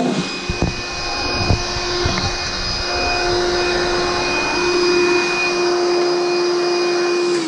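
Cordless shop vac running steadily with a constant motor whine, a few low bumps in the first couple of seconds as the nozzle is worked around; it is being used to try to suck a broken pencil tip out of an engine block.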